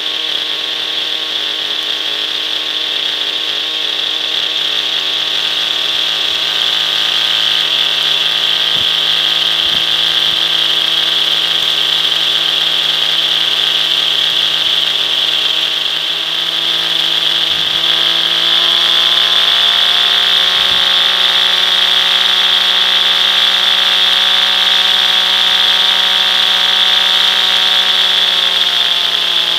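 O.S. 50 Hyper two-stroke nitro glow engine of a Hirobo SDX 50 RC helicopter running steadily on the ground, with the rotor head spinning, during the engine's run-in. The high whine rises in pitch about 17 seconds in as the engine speeds up, and drops back just before the end.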